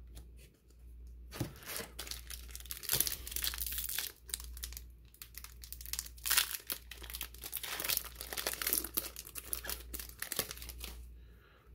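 Foil wrapper of a Flesh and Blood Welcome to Rathe booster pack crinkling and tearing as it is ripped open by hand, in repeated bursts from about a second in until near the end.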